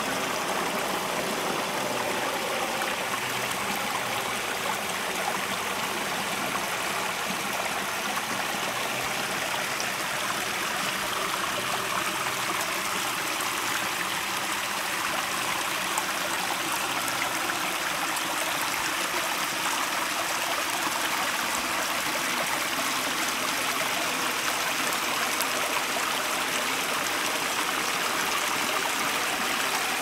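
Small waterfall splashing steadily over rocks: a continuous rush of running water.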